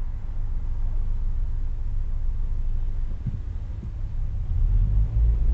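Low, steady rumble of a car idling in traffic, heard inside the cabin. It grows louder near the end as the car starts to pull away.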